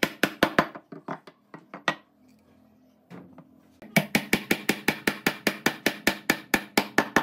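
Rubber mallet knocking a pine rail down onto a tenoned leg, driving the mortise-and-tenon joint home, in quick blows of about five a second. A short run of knocks and a few scattered ones come first; a steady run of blows starts about four seconds in.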